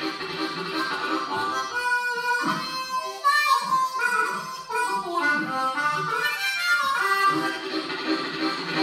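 Solo harmonica played cupped in both hands into a microphone, performing a train-ride piece. A steady pulsing rhythm gives way to a run of bent, wailing melody notes in the middle, and the pulsing rhythm returns near the end.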